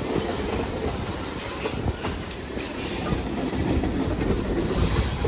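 A New York City subway train of R68 cars running past on the rails: a steady rumble with the wheels clacking over rail joints.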